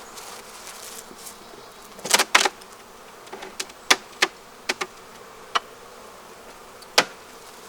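Honeybees buzzing steadily around an open hive. Over the buzz come a series of sharp knocks and clicks as the hive parts are handled: a cluster about two seconds in, several more in the middle, and a loud single knock near the end.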